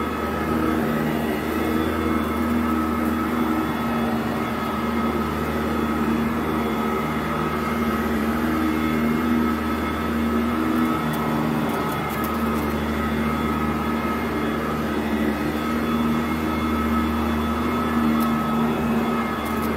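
Modified Sanitaire SC899 commercial upright vacuum running steadily over carpet. Its motor gives a continuous hum under a rush of suction, shifting slightly in tone every few seconds.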